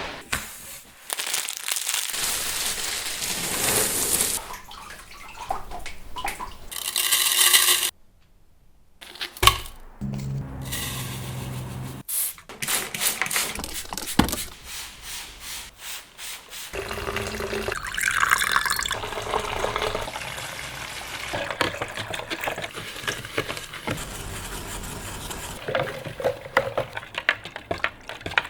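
Edited collage of printmaking studio sounds: stretches of water noise cut together with clicks, knocks and scraping. The sound changes abruptly several times, with a brief near-quiet gap about eight seconds in.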